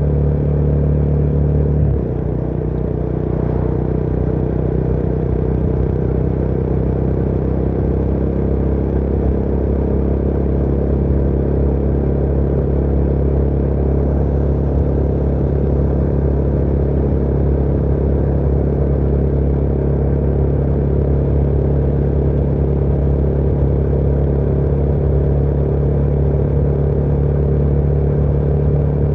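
Motorcycle engine running steadily under way. The engine note changes abruptly about two seconds in, then holds steady.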